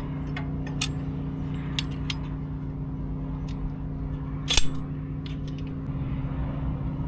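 Scattered metallic clicks and clinks of a dual-piston brake caliper compressor tool being worked and taken off a front brake caliper, with one louder metal clank about two-thirds of the way through. A steady low hum runs underneath.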